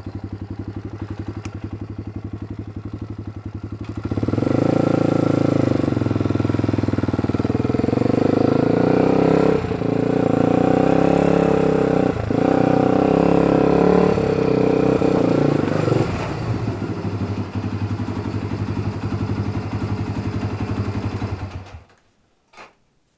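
Honda 300EX ATV's single-cylinder four-stroke engine with an FMF exhaust, idling, then given throttle and ridden with the revs rising and falling for about twelve seconds. It settles back to a steady run and is shut off suddenly near the end.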